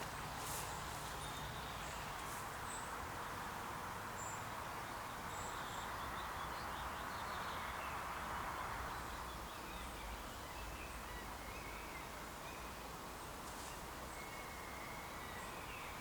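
Outdoor ambience: a steady, even hiss with a few faint, brief bird chirps.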